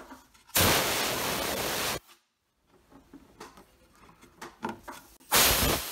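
Two short blasts of compressed air from an air blow gun, blowing debris out of the small divots in a cast resin pen blank and the gap between blank and lathe bushing. The first blast lasts about a second and a half and cuts off suddenly; the second starts near the end.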